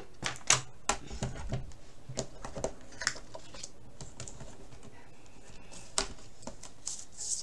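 Scattered sharp clicks and light knocks as a cutting mat, plastic stencil, ruler and round metal magnets are set down and positioned on a craft table. The knocks come thickest in the first three seconds, with a few more near the end.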